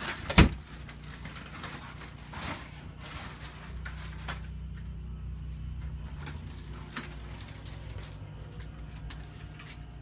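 A wooden interior door in an RV knocks shut sharply about half a second in. A few fainter clicks and knocks follow over a steady low hum.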